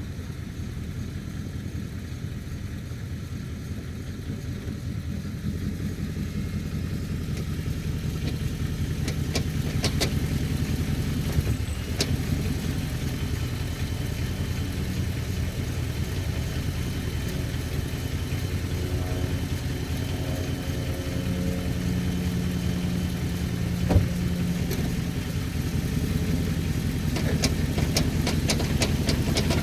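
A 2005 Chrysler 300C's 5.7-litre Hemi V8 running steadily, with a few sharp clicks now and then and a quick series of ticks near the end, the kind of knocking the owner is chasing.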